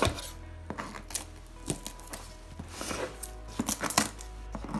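Scissors cutting through packing tape on a cardboard box, a string of sharp clicks and scrapes with the loudest snip right at the start. Soft background music underneath.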